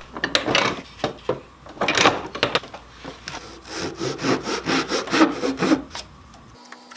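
Japanese dozuki backsaw cutting thin wooden kumiko strips held in a cutting jig, in quick back-and-forth strokes. There are two runs of strokes with a short pause about halfway through.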